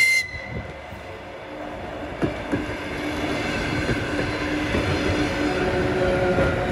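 Soviet-built ER2K electric multiple unit gives a brief high toot of its horn, then its cars roll past with wheels knocking over the rail joints, growing louder as they come alongside.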